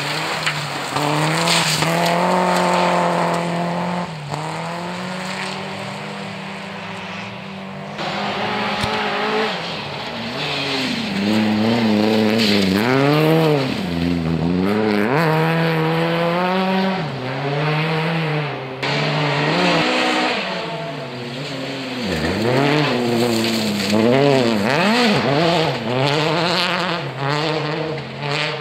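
Rally cars driven flat out on a gravel stage, one after another. Their engines rev high and drop back again and again through gear changes and lifts, with tyre and gravel noise as the cars slide through the corners.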